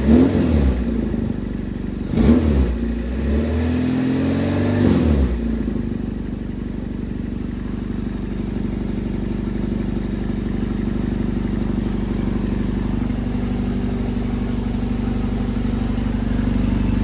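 Nissan 240SX's KA24DE four-cylinder engine running, revved in a few quick blips over the first five seconds or so, then settling into a steady idle.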